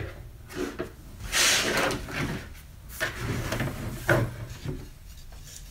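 Hand tools, a brad gun among them, being set down and moved about on a tabletop: scattered knocks and clunks, with a longer sliding rustle about a second and a half in.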